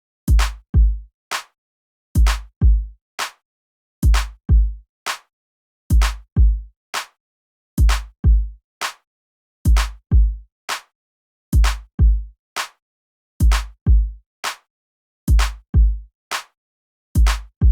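Looped electronic drum beat: two deep bass-drum hits close together, then a lighter, sharper hit, the pattern repeating about every two seconds with silence between and no other instruments.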